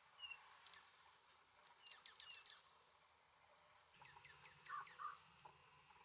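Faint calls of small songbirds: scattered short, high chirps and quick downward-slurred notes, bunched in two brief flurries.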